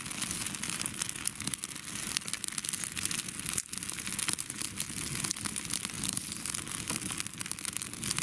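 Small, freshly lit campfire of dry twigs and kindling crackling, with many sharp snaps.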